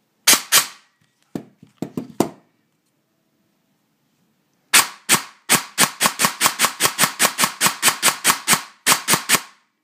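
Airsoft AEG gearbox with 13:1 SHS gears, a Kanzen motor and an ASCU Gen3 trigger unit, dry-firing on the bench: each cycle is a sharp clack as the piston slams forward. A few single shots come first, then after a pause a quick burst of over twenty clacks at about five or six a second, which stops shortly before the end.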